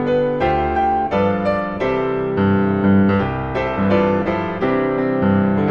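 Background piano music: a melody of struck notes, a few notes a second.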